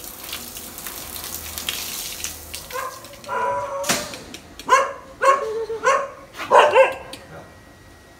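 A dog yelping and whining in about six short, pitch-bending calls from about three seconds in, the loudest near the end. Before the calls, the hiss of water spraying from a hose.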